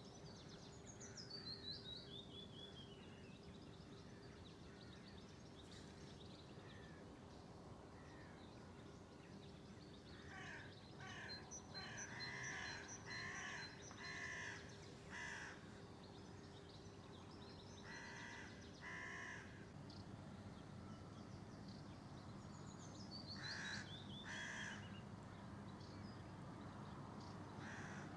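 Crows cawing in several bursts of harsh calls, with a small songbird twice singing a quick phrase of high notes that run downward in pitch.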